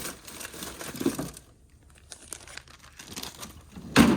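Plastic freezer bags crinkling as they are handled, with a few small clicks, then a sharp knock near the end.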